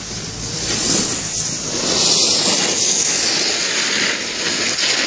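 Snowboard edge scraping across groomed snow as a rider turns past close by: a loud hiss that swells about a second and a half in and eases off toward the end.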